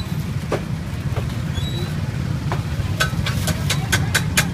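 Steady low hum of street traffic and engines, with a quick run of sharp clicks from about three seconds in.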